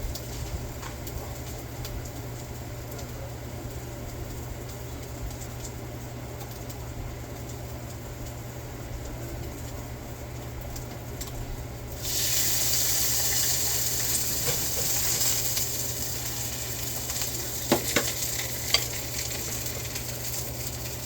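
A birria taco sizzling in a hot pan: the frying starts suddenly about halfway through as it goes in, loud at first and slowly easing off, with a few sharp knocks of a utensil near the end. Before the sizzle there is only a steady low hum.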